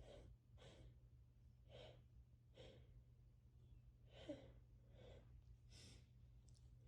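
Faint, short breaths and sniffs from a woman with a congested head cold, about one a second, some with a slight gasp to them. A steady low hum runs underneath.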